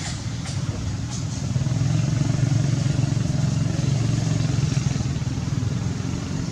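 A motor vehicle's engine running steadily as a low hum, growing louder about a second and a half in and easing off near the end as it passes.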